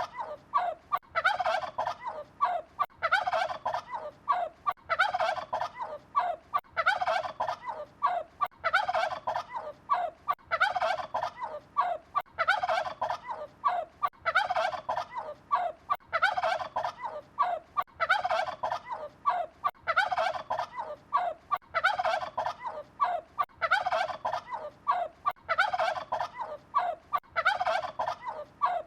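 Turkey gobbling over and over: a rapid, warbling gobble about every two seconds, each one short, with brief pauses between them.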